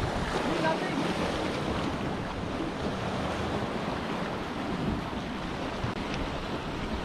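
Small sea waves washing against a rocky shore, with wind blowing across the microphone, steady throughout.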